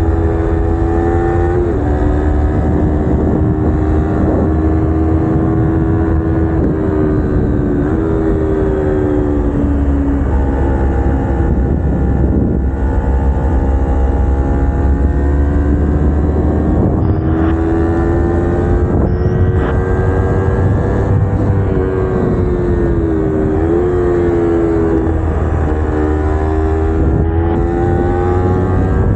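Kawasaki Ninja 250R's parallel-twin engine with aftermarket headers and exhaust, running at steady high revs while ridden. Its pitch dips and climbs back several times as the throttle is eased and rolled on. Wind rumbles on the microphone.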